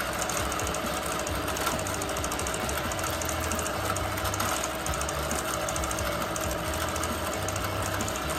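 Bernina Q24 longarm quilting machine stitching free-motion, its needle and hopping foot going up and down in a fast, even rhythm.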